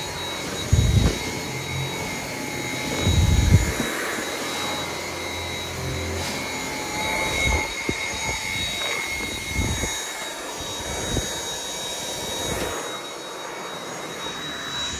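Dyson V7 cordless stick vacuum running with a steady high whine. A few low thumps and knocks come through, the loudest about a second in and again around three seconds in.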